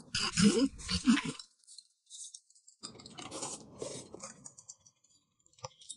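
Eating sounds: slurping and chewing of noodles and spoonfuls of corn soup, in two bouts, with a single short click of a utensil against a dish near the end.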